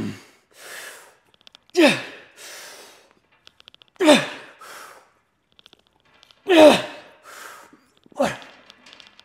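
A man grunting hard with each rep of an all-out weight-machine set: four loud grunts that fall in pitch, about two seconds apart, each followed by a sharp breath.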